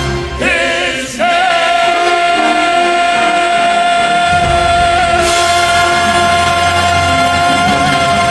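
Song with band accompaniment: a singer holds one long note with a slight vibrato, and a deep bass part comes in about four seconds in.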